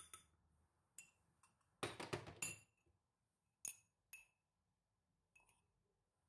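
Kitchen dishes and utensils clinking: single light clinks with a brief bright ring, and a quick clatter of several louder knocks about two seconds in.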